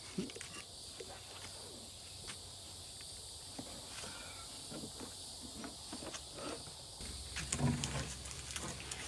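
Scattered soft knocks, scuffs and rustles of a stiff molded WeatherTech floor liner being handled and worked into a van's footwell, with a louder run of scuffing and bumping near the end.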